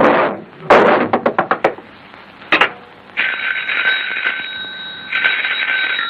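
Cartoon telephone bell ringing as two long rings over the last three seconds. Before it come a short rush of noise, a quick run of about seven sharp clicks about a second in, and a single sharp knock.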